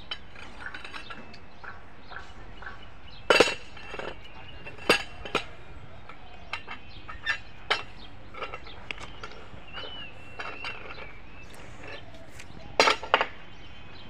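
Hammer blows on steel railway track fastenings, heard as sharp, ringing metallic clinks. There is a double strike about three seconds in, single strikes through the middle and a quick run of three near the end, with lighter metal clinks between.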